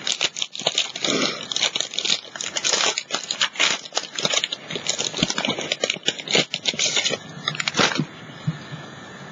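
Thin plastic stencil sheets and their plastic packaging crinkling and rustling as they are handled, a dense run of crackles that dies away about eight seconds in.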